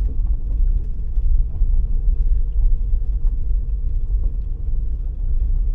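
A car's low, steady engine and road rumble, with a faint steady hum above it.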